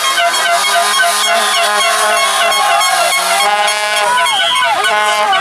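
Loud honking horn tones at several pitches over a steady low drone, with a few tones sliding down and back up near the end.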